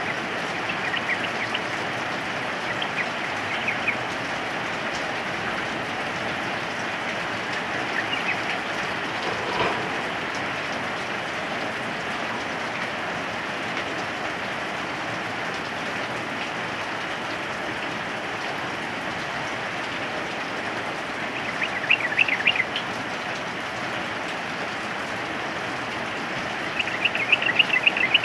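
Steady rain hiss, with short bursts of bubbly chirping from a yellow-vented bulbul (trucukan): a few near the start, a brief phrase about a third of the way in, and louder bursts twice near the end.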